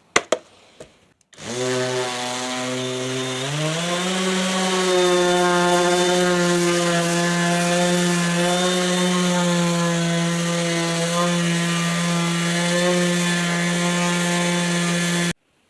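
A few light clicks, then an electric sander with 80-grit paper starts on a wooden cutting board. Its motor rises in pitch over the first couple of seconds, then runs steadily while sanding, and stops suddenly near the end.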